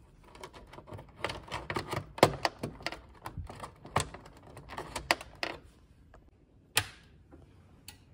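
Plastic wiring-harness plugs being pulled from and pushed onto a gas combi boiler's circuit board, swapping misplaced plugs back into their proper sockets: a quick run of clicks and rattles for about five seconds, then two single sharp clicks near the end.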